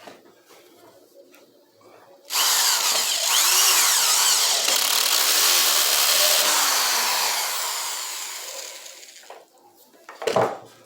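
Electric power tool working wood: it starts suddenly about two seconds in, runs steadily for several seconds, then fades away. A short burst of sound follows near the end.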